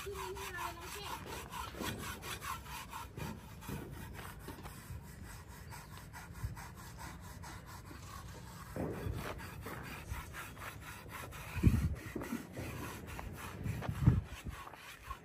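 Quick, repeated rubbing strokes over a horse's coat as it is massaged and groomed by hand, with two louder dull thumps near the end.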